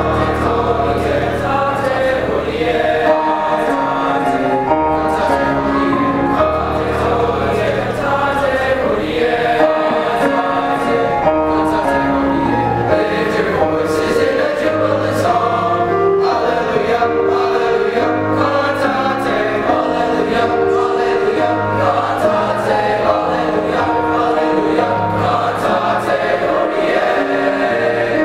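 Eighth-grade boys' chorus singing in parts, with piano accompaniment.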